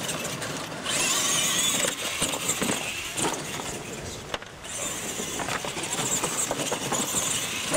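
Electric RC monster trucks racing over dirt: a high-pitched motor and gear whine that wavers in pitch with the throttle, with a few short knocks from the trucks hitting the ramps. The whine cuts out briefly twice.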